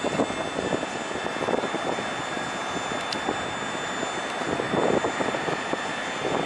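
Jet engines of a landing Airbus A320 running during its runway roll-out: a steady rushing noise with a faint high whine, getting louder near the end.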